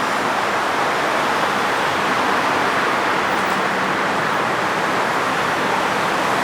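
Heavy diesel machinery running steadily: a constant hiss-like noise with a faint engine hum underneath.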